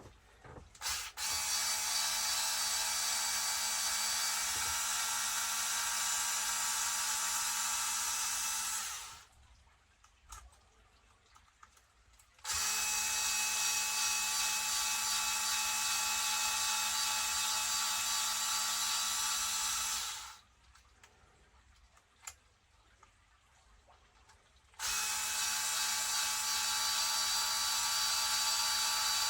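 A small electric power tool running in three long, steady runs of about seven to eight seconds each, with short quiet pauses between them.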